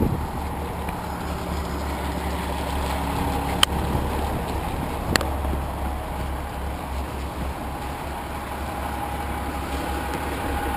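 City transit buses' engines idling close by, a steady low rumble. Two sharp clicks about a second and a half apart near the middle.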